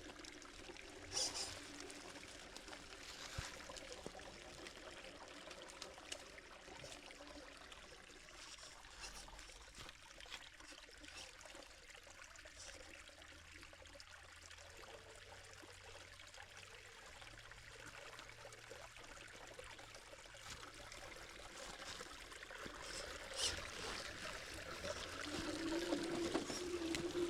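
Small waterfall trickling and running over rock, a steady flow of water that grows louder over the last few seconds.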